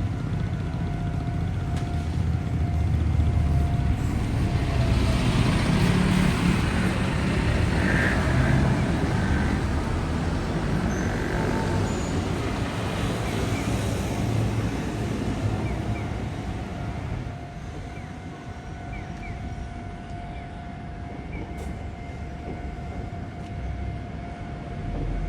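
Road and rail vehicle noise: a low rumble builds about four seconds in, is loudest a few seconds later, then fades, with a thin steady whine underneath.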